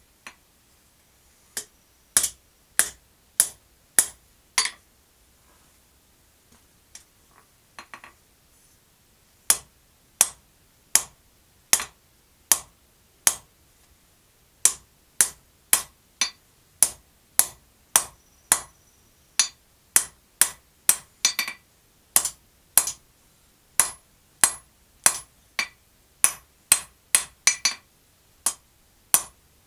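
Blacksmith's hand hammer striking a red-hot bar held in tongs on an anvil, bending the curve of a forged heart: sharp, ringing blows at about one and a half a second. The hammering stops for about four seconds near the start, with a few light clinks, then runs steadily again.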